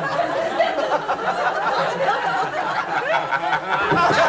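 Studio audience laughing, a dense, continuous crowd laugh.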